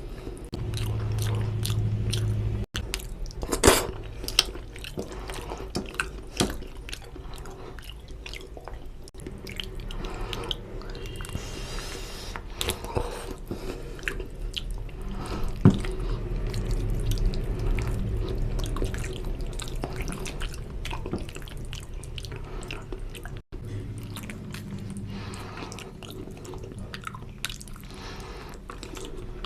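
Close-up wet chewing and lip-smacking of a person eating puri with mutton lung and intestine curry, with many short, irregular squelches and clicks.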